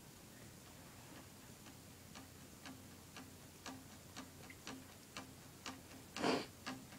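Faint steady ticking, about two a second, a tempo click counting in the song before the singing starts. A louder breath is drawn in near the end.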